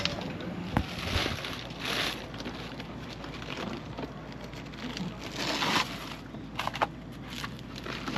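Fishing gear and supplies being loaded onto a boat: scattered knocks and rustling, scraping swishes over a low steady hum.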